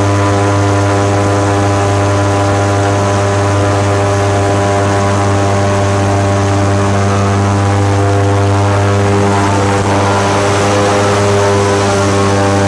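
Airboat's engine and large air propeller running loud and steady at speed, a deep, even drone with a hiss of air over it.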